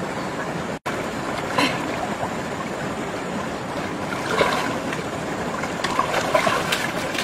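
Steady rush of shallow river water, with splashing from someone wading and groping through it by hand; a few louder splashes stand out. The sound cuts out for an instant just under a second in.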